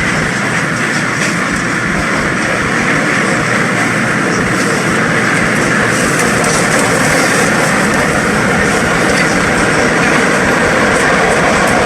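MBTA Red Line subway train running along the track: a steady, loud rumble and rail noise with faint clicks from the wheels, growing slightly louder.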